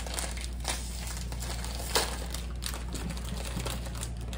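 Thin plastic snack bag crinkling as it is pulled open by hand, with one sharper crackle about two seconds in.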